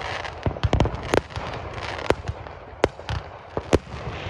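Aerial fireworks bursting overhead: a string of sharp bangs at irregular intervals, with a crackling hiss between them.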